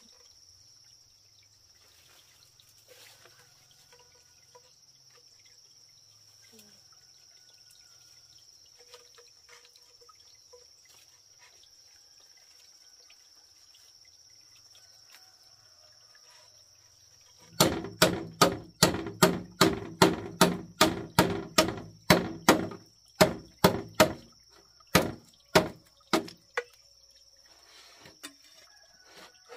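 A blade chopping bamboo: about two dozen sharp blows, roughly three a second, that come in a fast run past the middle, then thin out and stop. A steady high drone of insects carries on underneath.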